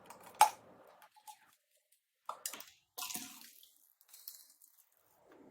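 Plastic clicks and rattles from a cordless stick vacuum's dust bin being unlatched and handled: a sharp click about half a second in as the bottom door is released, then a few lighter clicks and scrapes of the bin and filter parts.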